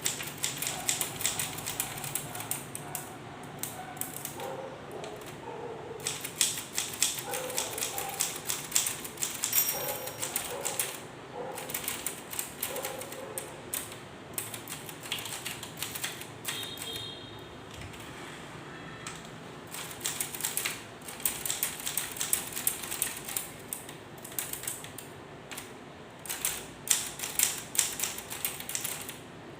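Korean K Clover 815 manual typewriter being typed on: runs of quick key strikes clacking against the platen, broken by short pauses.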